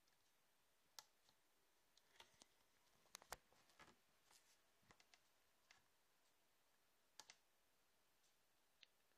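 Faint, sharp clicks of small tactile push buttons on a breadboard being pressed: the start/stop and reset buttons of an Arduino stopwatch. Scattered single clicks, with a cluster around the middle and a quick double click near the end.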